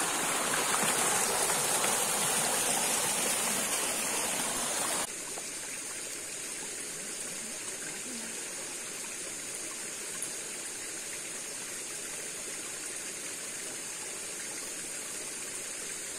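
Steady rushing of a hill stream's flowing water. It drops abruptly to a quieter level about five seconds in, then carries on evenly.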